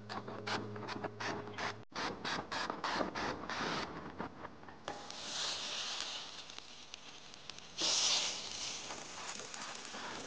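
A cut vegetable rubbed back and forth over a hot steel griddle plate, a scraping stroke about three times a second. After that comes an aerosol cooking-oil spray hissing onto the hot plate in bursts, loudest about eight seconds in.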